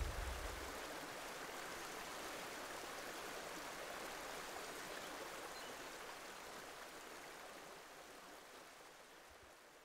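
Steady rush of running water, like a stream, fading slowly away over the last few seconds, as the last low notes of music die out in the first second.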